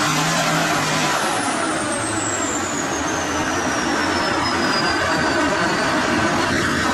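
Main battle tank's engine running loud and steady as it works through deep mud, with a high whine that slowly falls in pitch starting about a second in.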